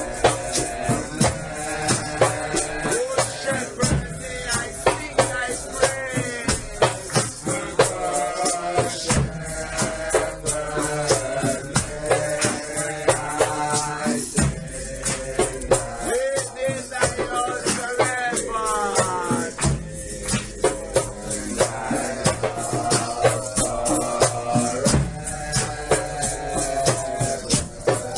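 Nyahbinghi music: hand drums keep a steady beat and shakers rattle, under voices singing a slow hymn melody.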